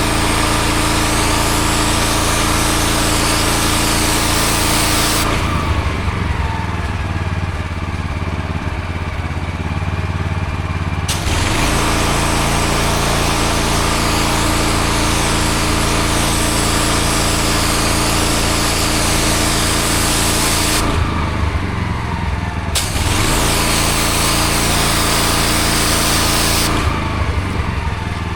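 Engine-driven pressure washer running steadily with the water jet hissing against block paving. The spray cuts off three times, for about six seconds from roughly five seconds in, briefly past twenty seconds, and again near the end, while the engine keeps running.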